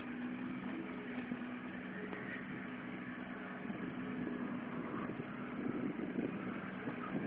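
Backhoe engine running steadily at idle, a constant low hum.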